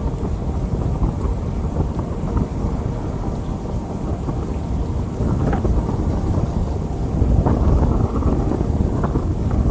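Steady rain with a continuous deep rumble of rolling thunder, swelling a little near the end.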